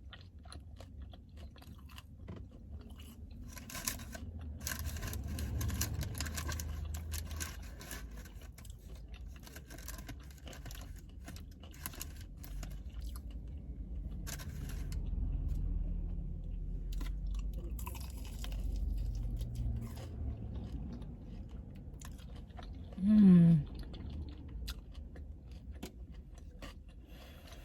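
A person eating crunchy fried food close to the microphone: runs of crunchy bites and chewing, over a low steady hum. Near the end comes one short voiced sound, falling in pitch, the loudest moment.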